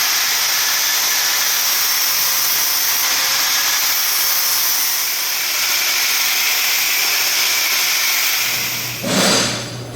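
A grinder running steadily as it grinds down the welded aluminium build-up on a cylinder head, a high, even hiss of metal being ground. It stops about eight and a half seconds in, followed by a short louder rush of noise.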